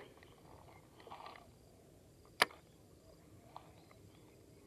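Baitcasting rod and reel during a cast: a short hiss about a second in, then a single sharp click near the middle, the loudest sound.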